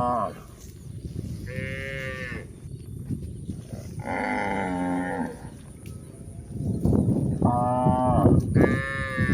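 Cows mooing: about five separate calls, each a short moo that bends in pitch, with a louder rustling noise under the last two calls near the end.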